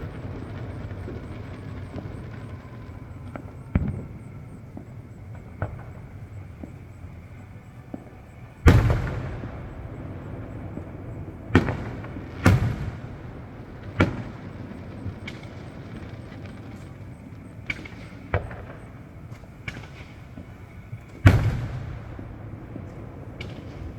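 Fireworks going off: a string of sharp booming bangs at irregular intervals, the loudest about nine seconds in and near the end, with smaller pops between them over a steady low background rumble.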